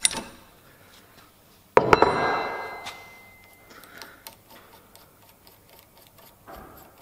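Metal tool work on a 3/8-drive click torque wrench: a sharp click, then about two seconds in a loud metallic clank that rings on for over a second, as the spanner is taken off the handle end and set down. After that comes light irregular ticking, about three or four ticks a second, as the handle's end cap is turned by hand to back off the spring setting.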